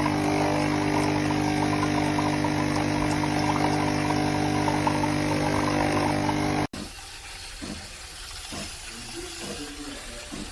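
Nespresso Creatista Plus coffee machine's pump humming steadily as it pumps water to brew, stopping abruptly about six and a half seconds in; a few faint short knocks and clicks follow.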